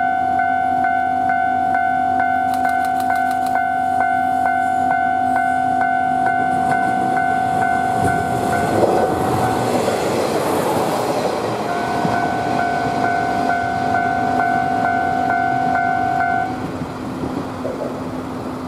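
Level-crossing warning bell ringing in a fast, even, two-tone rhythm while a two-car diesel train passes close by. The train's running noise and wheels on the rail joints swell about halfway through and all but cover the bell. The bell stops shortly before the end.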